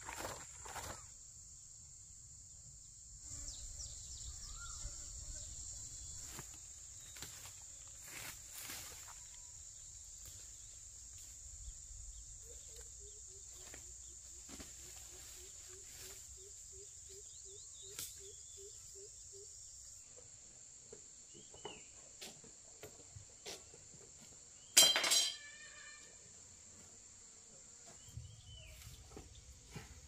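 Insects trilling steadily at a high pitch, with scattered clicks and knocks. Midway comes a run of about a dozen short, evenly spaced low notes, and about 25 s in there is one brief, loud, sharp sound.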